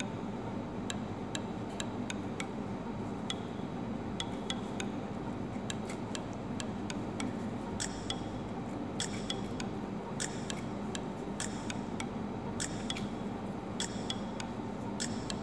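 Kitchen knife working through an avocado by hand, giving irregular light clicks and taps, several a second at times. A steady low hum runs underneath.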